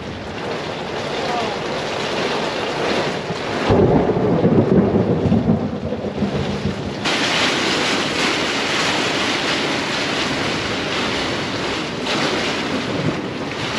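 A thunderstorm: steady heavy rain with a deep rumble of thunder that starts suddenly about four seconds in and dies away over a couple of seconds. The rain hiss grows louder from about seven seconds in.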